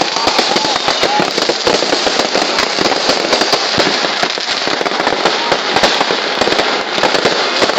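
Many fireworks and firecrackers going off at once: a dense, unbroken crackling and popping that holds steady throughout.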